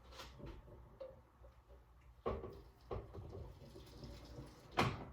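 Kitchen cookware handled: a few sharp knocks of a pot and utensils, the loudest near the end.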